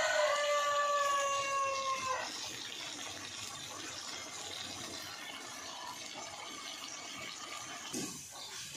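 Squid chilli simmering in an aluminium kadai over a wood fire, a steady sizzling hiss. In the first two seconds a rooster crows in the background, one long held note that stops abruptly; near the end a ladle scrapes and knocks in the pan.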